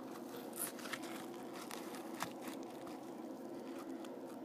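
Faint clicks and light crunching of a sliced apple being handled and pulled apart by hand, over a low steady hum.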